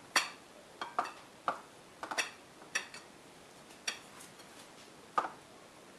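Irregular clinks of a ceramic bowl, about ten in six seconds and some with a short ring, as hands toss raw chicken pieces in seasoned flour and knock the chicken and fingers against the bowl.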